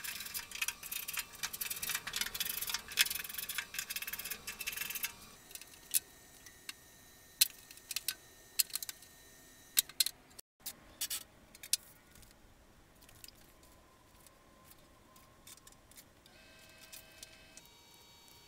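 A screwdriver working metal snap fasteners off a steel truck tailgate: a dense run of small metallic clicks and scrapes for about five seconds. After that come scattered light clicks and taps.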